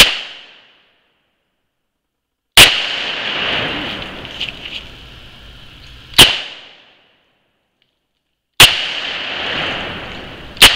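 Five pistol shots from a Llama Ruby .357 Magnum revolver, fired a few seconds apart. Each is a sharp crack that trails off over about half a second.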